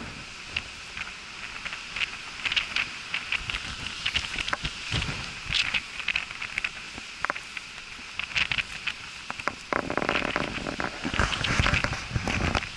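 Footsteps crunching and rustling through dry grass and brush, a run of short crackles that grows denser and louder near the end.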